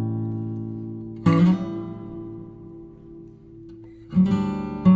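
Background music: acoustic guitar. A chord is strummed about a second in and left to ring out slowly, then more chords are strummed near the end.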